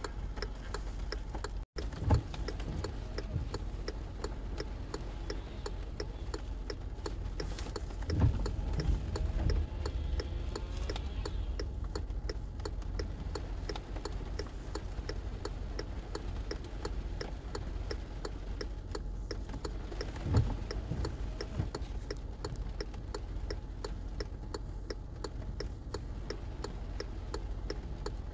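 Car's indicator flasher ticking at a steady even rhythm, heard inside the cabin over a low steady rumble, with a few low thumps about 2, 8 and 20 seconds in.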